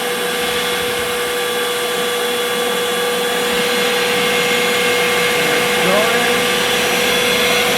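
Shop vacuum running steadily with a constant motor whine, switched on through the CNC mill's M8 accessory-power output. A short rising whine comes in about six seconds in.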